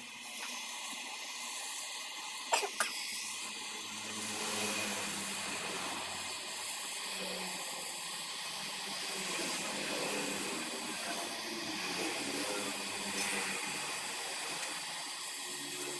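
Acetylene gas welding torch flame hissing steadily as it heats aluminium scrap in a small can to melt it down, with two sharp clicks about two and a half seconds in.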